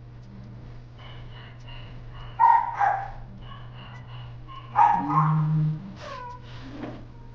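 Two short animal cries about two seconds apart, over a steady low hum.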